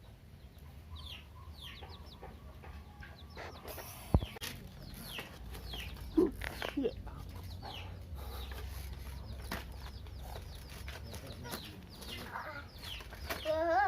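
Chickens peeping in short, falling chirps scattered throughout, over a steady low rumble, with one sharp knock about four seconds in.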